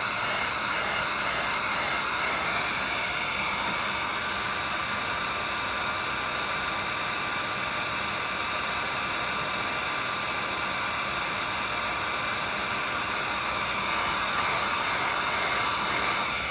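Handheld electric heat gun running steadily, blowing hot air with a faint steady whine over a fresh coat on a glitter tumbler to dry it.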